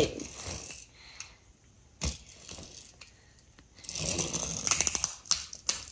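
A small toy car rolled by hand on a tabletop: a single knock about two seconds in, then about two seconds of rattly, clicking whirring from its wheels and gearing near the end.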